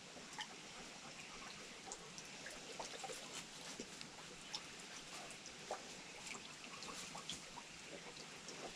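Faint trickle of shallow creek water, with light scattered drips and ticks.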